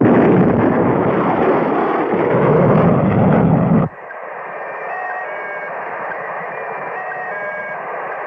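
Rocket-engine sound effect of a cartoon spaceship: a loud rushing blast that cuts off sharply about four seconds in. It gives way to a quieter hiss with a run of short electronic bleeps at changing pitches.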